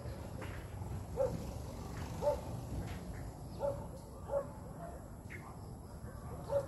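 A dog barking: about five short, irregularly spaced barks over a low, steady background noise.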